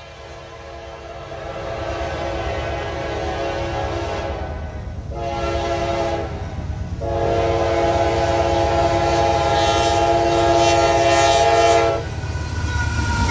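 Norfolk Southern diesel locomotive's air horn sounding as the freight train approaches: a long blast, a short one, then a long blast of about five seconds that cuts off around twelve seconds in. Under it the low rumble of the engines and train grows steadily louder.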